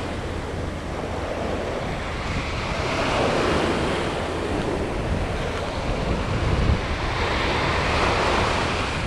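Small ocean waves breaking and washing up a sandy beach. The surf swells and eases, with surges about three seconds in and again near the end, while wind buffets the microphone with a low rumble.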